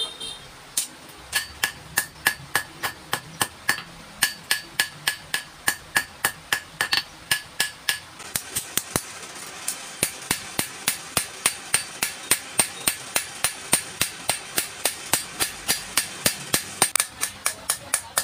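Hand hammer striking a red-hot 80CrV2 carbon-steel knife blade on an anvil, forging it in a steady rhythm of about three blows a second, with a short metallic ring after each blow. After about eight seconds the blows come a little faster and ring higher.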